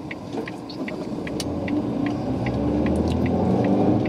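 Car engine and road rumble heard from inside the cabin, growing louder as the car picks up speed, with a light regular ticking two or three times a second.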